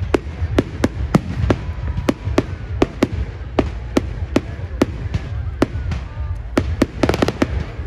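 Fireworks display: aerial shells and crackling stars bursting in a steady run of sharp bangs, about three or four a second, over a low rumble, with a quick rattle of crackles about seven seconds in.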